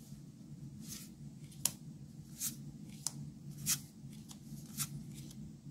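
Magic: The Gathering trading cards being flipped and slid in the hands, a soft card snap or slide every second or so.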